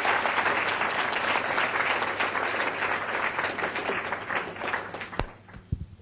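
Audience applauding, a dense patter of many hands clapping that dies away near the end into a few scattered last claps.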